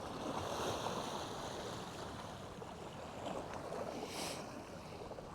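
Steady wash of waves and moving water, with a short hiss about four seconds in.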